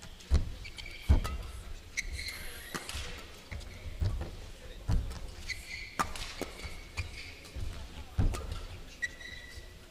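Badminton rally: sharp cracks of rackets hitting the shuttlecock about once a second, with court shoes squeaking briefly on the sports floor and footfalls thudding.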